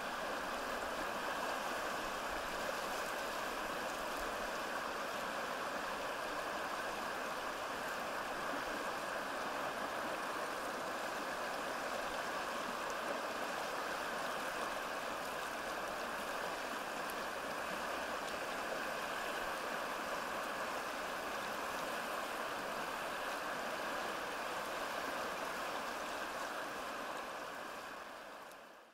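Stream water running steadily with an even rushing sound, fading out near the end.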